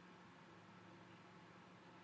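Near silence: room tone with a faint hiss and a steady low hum.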